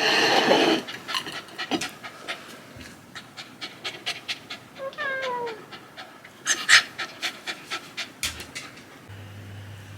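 A dog panting in quick, short breaths, with a short falling whine about five seconds in. A loud burst of noise opens the sound.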